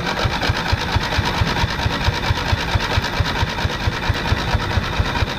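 Riding lawnmower's electric starter cranking the engine over in a steady, even rhythm of about seven compression strokes a second, without it catching. The battery was dead and has just been charged from a solar panel.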